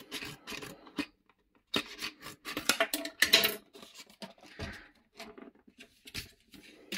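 A circle cutter's packaging being opened by hand, with irregular crackling, scraping and snipping sounds that come in short bursts. The busiest handling falls around the middle.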